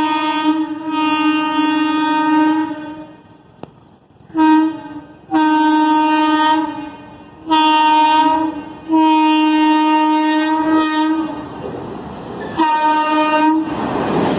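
WAP4 electric locomotive's horn sounding six times as the express approaches at speed through the station without stopping. The blasts are mostly long, with a short one about four seconds in. Near the end the horn gives way to the rushing noise of the locomotive passing close by.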